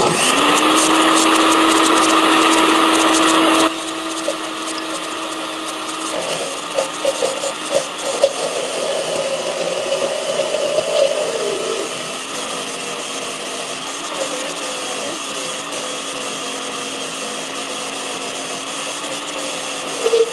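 Countertop blender running, churning a thick cake batter. It starts loud and steady, drops to a lower level after a few seconds, and its hum sinks slightly in pitch twice as it goes.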